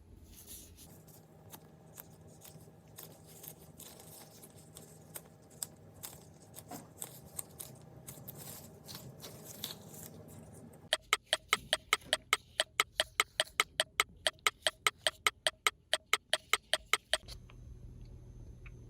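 Hotteok dough being worked in a bowl: faint, irregular squishy clicks for the first ten seconds or so. Then, about eleven seconds in, a fast, even run of ringing taps, about six a second for some six seconds, like a utensil beating against the bowl, which stops suddenly.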